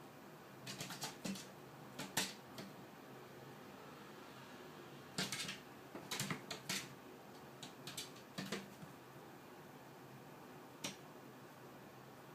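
Cat's paws and claws tapping, thumping and skittering on the floor in irregular flurries as it chases and pounces, over a faint steady room hiss.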